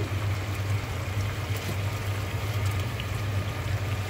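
Chicken drumsticks sizzling steadily in hot oil in a frying pan, over a steady low hum.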